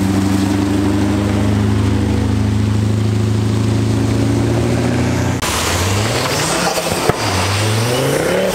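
A car engine running at steady revs as the car drives off. After a break about five seconds in, an engine accelerates, its pitch rising in two runs.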